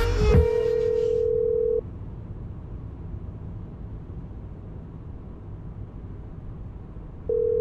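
Telephone ringback tone of an outgoing call: a steady ring tone heard twice, about a second and a half each and several seconds apart, with a low hum between the rings.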